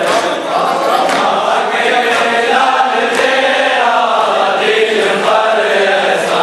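A crowd of men chanting a Muharram lament (noha) together in unison, with sharp strokes about once a second typical of matam, hands beaten on chests in time with the chant.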